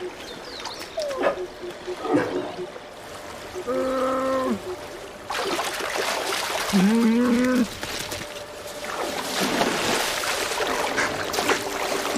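Two drawn-out whining calls from a brown bear cub, the second rising at its start, among heavy splashing as a bear bounds through shallow water.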